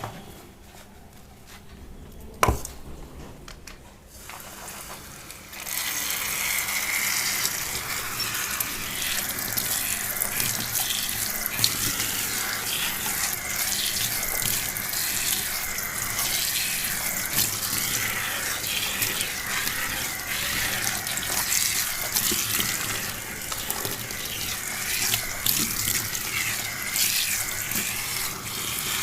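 A single sharp click, then from about five seconds in, water running steadily from a tap and splashing, as in rinsing hair during a shampoo wash.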